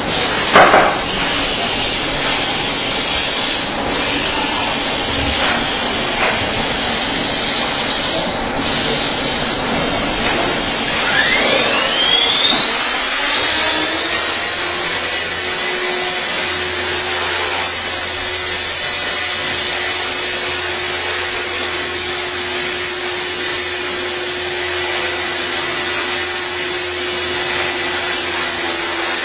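Electric 450-size RC helicopter (Trex 450 clone) spooling up for a stability test: the brushless motor and rotor whine rises in pitch over about three seconds, starting some eleven seconds in, then holds steady at running speed. Before the spool-up there is a steady hiss, with a loud knock about a second in.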